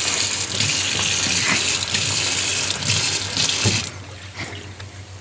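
Kitchen tap running onto bread rolls held under it in a stainless steel sink, shut off about four seconds in. A few faint knocks follow.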